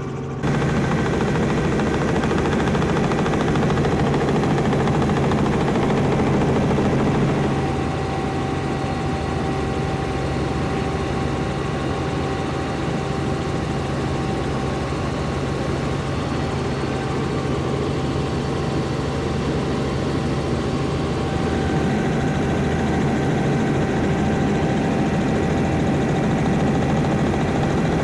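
Helicopter engine and rotor running with a steady drone, a little louder for the last few seconds.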